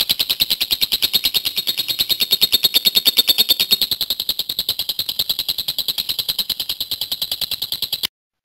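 Lovebird singing a long, unbroken 'ngekek': a rapid string of high, evenly repeated chattering notes that stops abruptly near the end.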